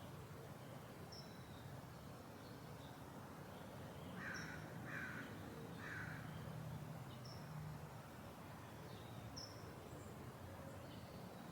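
Crow cawing three times in quick succession about four seconds in. A small bird gives short high chirps every couple of seconds over a steady low background hum.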